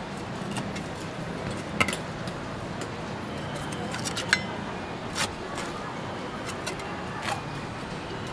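Butcher's knife and cleaver clinking against a stainless steel table while cutting pork: a handful of sharp metallic clicks, a couple of them ringing briefly, over a steady background of market voices.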